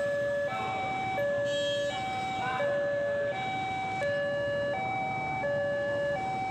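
Railway level-crossing warning alarm sounding, an electronic two-tone signal alternating steadily between a higher and a lower tone about every 0.7 s: the warning that a train is approaching the crossing.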